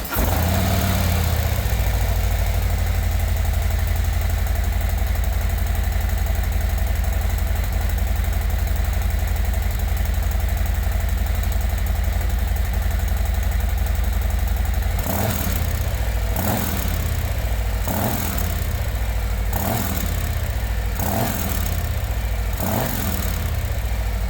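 Harley-Davidson Milwaukee-Eight 117 V-twin on its stock exhaust, just started and idling steadily. In the last third it is revved six times in quick blips, about one every second and a half: the factory sound before slip-on mufflers are fitted.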